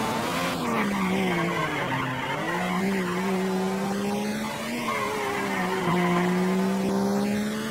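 Racing video game's race-car engine sound, a steady pitched drone that dips in pitch about a second in, then climbs back and holds, with tyre squeal as the car slides through the corners.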